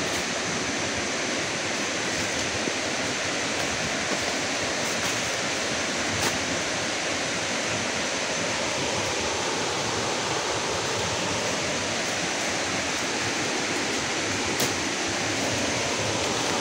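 Steady rush of a waterfall, an even wash of falling water heard from a distance, with a thin high tone running through it and a couple of faint ticks.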